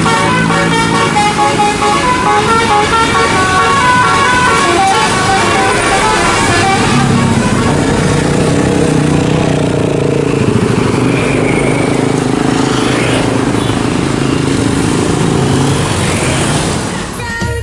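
Basuri telolet musical horn on a tour bus playing a quick run of changing notes, then lower, steadier horn tones over the noise of bus engines and traffic. It cuts off near the end.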